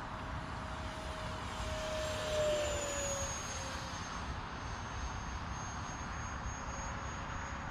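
Electric ducted-fan model jet, a Freewing F-22 Raptor on 64mm fan and 4S battery, flying past: its fan whine grows louder and drops in pitch about two and a half seconds in, then goes on more faintly.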